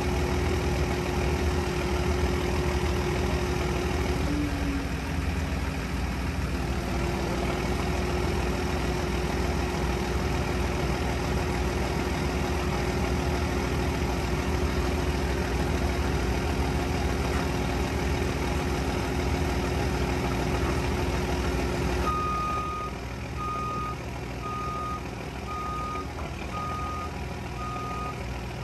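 Large marina forklift's engine running steadily as it raises a boat on its forks. About 22 seconds in the engine note drops and its reversing alarm starts beeping, about once a second.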